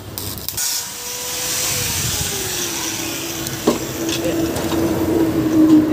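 A motor running with a steady whine that slides down in pitch over its first two seconds and then holds, over a high hiss, with a single sharp knock a little after halfway.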